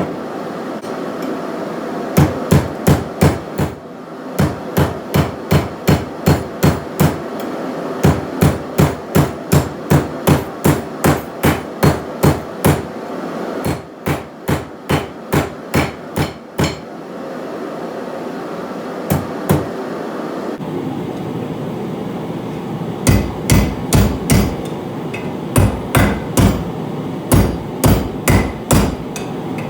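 Hand hammer striking hot flat steel on an anvil in quick runs of about three blows a second, each blow sharp and ringing, with short pauses between the runs and a longer lull past the middle. A steady rushing noise runs underneath.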